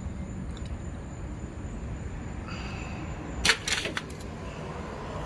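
Metal tongs and an aluminium RC nitro exhaust pipe knocking against a ceramic crock pot: one sharp clack about three and a half seconds in, then a lighter one. A steady low rumble runs underneath.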